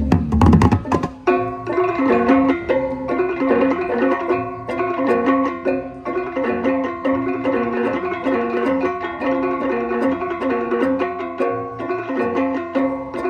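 Balinese gamelan playing: bronze gong-chimes ring out a fast, repeating interlocking melody over low sustained gong tones. A loud noisy clash comes in the first second before the melody settles in.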